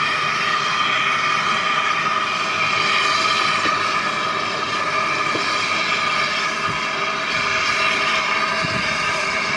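LNER A1 Pacific steam locomotive 60163 Tornado, a loud steady rush of steam with several held ringing tones over it and a few faint knocks.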